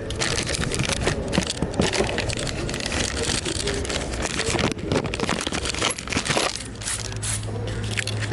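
Metal hand tools and parts clinking and scraping in rapid, irregular clicks during engine removal work on a car. A low steady hum comes in near the end.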